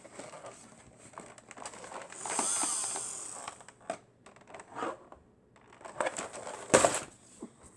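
Objects being handled and rummaged through: rustling and scattered small clicks and knocks, with one sharper knock near the end.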